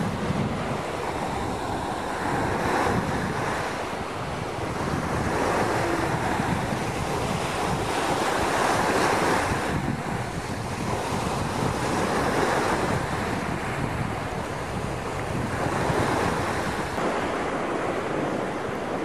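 Sea waves washing onto the shore, the surge swelling and falling back every few seconds.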